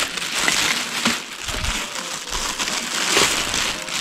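Crumpled plastic drink bottle crinkling and crackling as it is handled.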